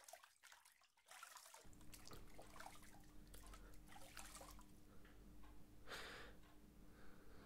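Near silence: faint room tone with a steady low hum, a few faint ticks and one soft brief rustle about six seconds in.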